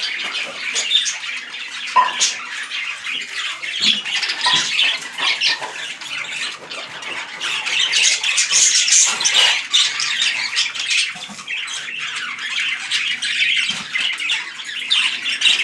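A flock of caged budgerigars chattering and chirping continuously, with sharper squawks mixed in throughout.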